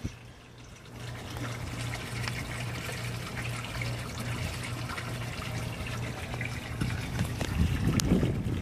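Waterside ambience: water trickling and lapping steadily over a constant low hum, with a gust of wind rumbling on the microphone near the end.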